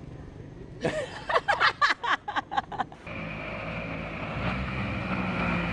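A quick run of about eight short, sharp sounds, then from about three seconds in a small outboard motor running steadily as it pushes a flat-bottomed boat through the water.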